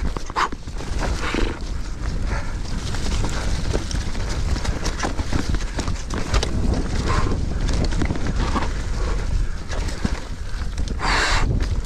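Mountain bike riding downhill on a forest dirt trail: a steady low rumble of tyres over dirt, rocks and dry leaves, with many quick rattles and knocks from the bike over bumps, and a brief louder scrape near the end.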